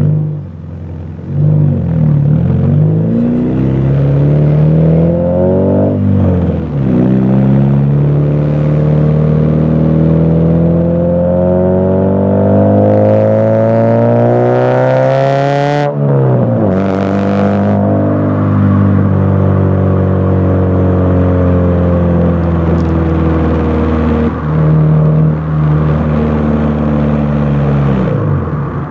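2003 Acura RSX Base's 2.0-litre four-cylinder engine, heard at the exhaust tip through an OBX race header and Tsudo N1 cat-back, driving on the road. The pitch dips and rises a few times in the first seconds. It then climbs steadily for about ten seconds, drops suddenly, and eases gently down for the rest of the time.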